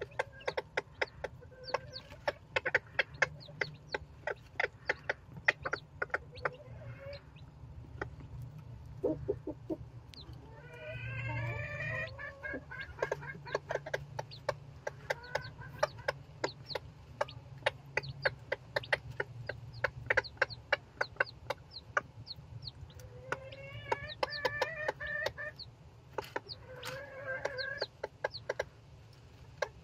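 Day-old silkie chicks peeping rapidly and constantly, short sharp cheeps several a second. A few longer, lower calls from the silkie hen come in about ten seconds in and again near the end.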